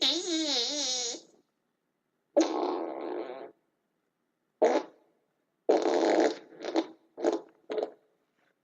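A run of about seven short, raspy, fart-like blasts separated by dead silence. The first lasts about a second with a wavering, wobbling pitch; the later ones are shorter, the last few quick and clipped.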